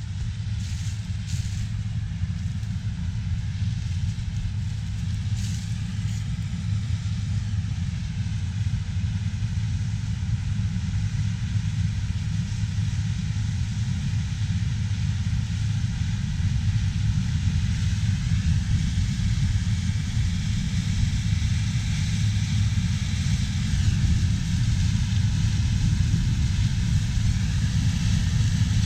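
Heavy diesel harvest machinery running steadily with a deep rumble. A faint whine above it shifts in pitch about two-thirds of the way through.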